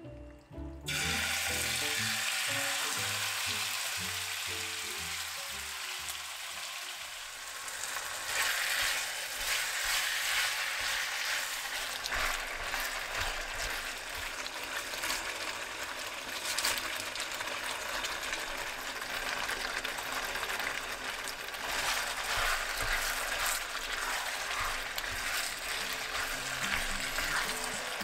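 Food sizzling and crackling as it fries in a hot pan, starting abruptly about a second in, over background music.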